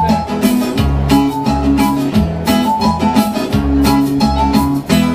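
Live band playing an instrumental stretch with no vocals: acoustic guitar strumming chords to a steady beat over keyboard, with low bass notes and short melody notes on top.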